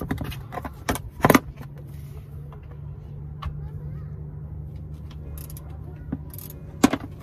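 A few sharp metallic clinks and knocks from a tool being worked on the Jeep's drain plug and oil pan, the loudest about a second in and again near the end. Under them runs the steady low hum of an idling vehicle engine, which sets in about a second and a half in.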